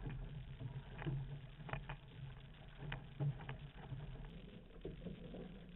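Outrigger canoe under way: water rushing past the hull and ama, with the crew's paddles dipping and splashing in short, sharp strikes.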